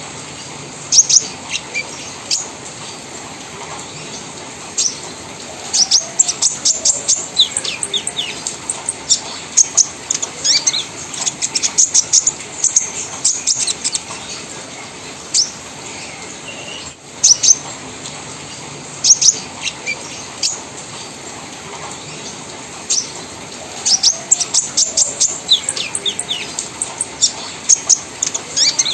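Kolibri ninja sunbird, a young male in patchy moult ('trotol'), giving its rapid 'crewet' chatter: runs of short, sharp, very high chirps, some sliding down in pitch, with brief pauses between runs.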